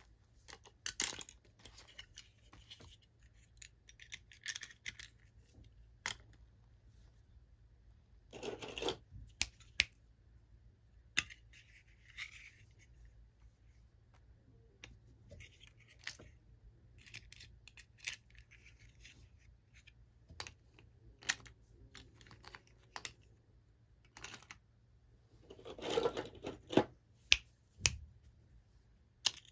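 Toy packaging being handled and opened: scattered sharp clicks and taps with short bursts of rustling, the longest about nine seconds in and again near the end.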